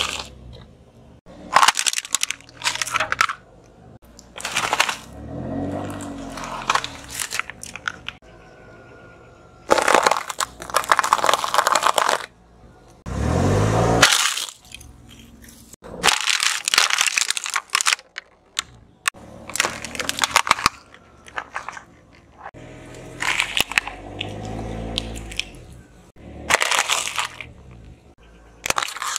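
Car tyre rolling over and crushing one object after another: a string of crunching and cracking sounds, each lasting a second or two, a few seconds apart.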